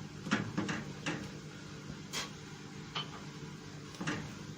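A handful of light, irregular knocks of a utensil against a cooking pan while the sauce is stirred, over a faint steady hum.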